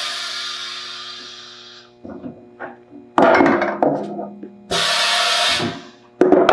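Sudden loud knocks and clatter of a steel-frame stacking banquet chair being taken out of a chair-testing machine, several separate noisy bursts, the first fading away over about two seconds, over steady background music.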